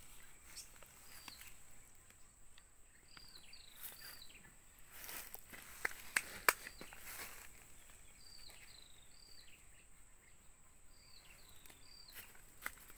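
A hand rustles and presses potting mix in plastic polybags, with a few sharp clicks about halfway through. Over it, a bird repeats short, high, down-slurred calls, mostly in groups of three.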